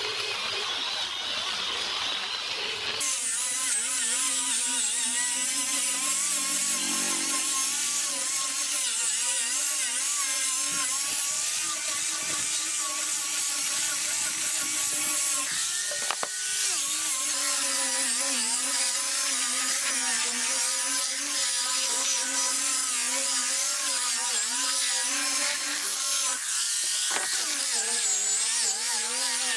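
Angle grinder fitted with a sanding disc, running as it sands wooden boards: a steady motor whine whose pitch wavers as the disc is pressed and moved over the wood. The whine dips briefly about halfway through and again near the end.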